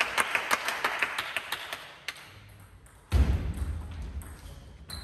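A quick run of sharp taps, about five or six a second, fading out over the first two seconds; then a sudden heavy low thud about three seconds in that dies away slowly.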